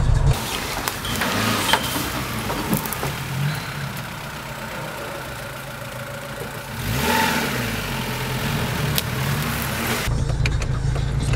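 Suzuki Samurai 4x4's engine working up a dirt track, with a rev that rises and falls in pitch about seven seconds in. A heavier in-cab engine rumble is heard briefly at the start and again near the end.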